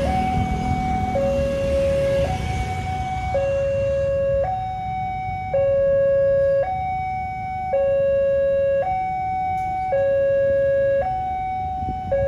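Railway level-crossing warning alarm sounding a two-tone electronic signal, switching between a higher and a lower note about once a second, the sign that the crossing is closed for an approaching train. Motorcycle and road-traffic rumble runs under it, fading after the first few seconds.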